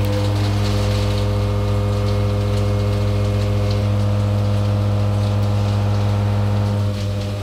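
Walter BLAXX M3024 face milling cutter, 80 mm with seven indexable inserts at about 1,050 rpm, face milling 42CrMo4 alloy steel 3 mm deep: a steady, loud hum of constant pitch from the cut. It falls away near the end.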